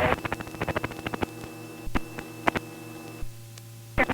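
Steady hum of a Robinson R44 helicopter in flight, heard as cockpit audio, with crackling static clicks. The clicks are dense for the first second or so, then come only a few times.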